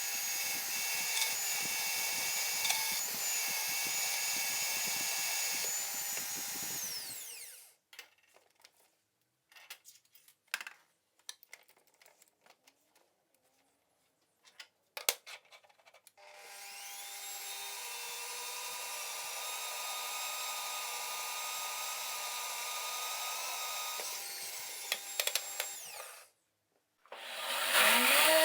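An electric power tool runs and winds down about seven seconds in, followed by scattered clicks and knocks. It spins up again, runs for about ten seconds and winds down, and a louder tool starts near the end.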